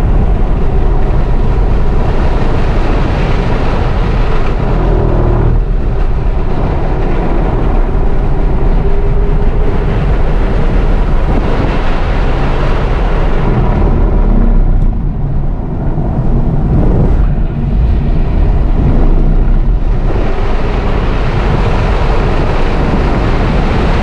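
Tesla Model 3 Performance at track speed: loud, steady rush of wind and tyre noise with a faint pitched whine that shifts as the car speeds up and slows, easing off briefly about two-thirds of the way in.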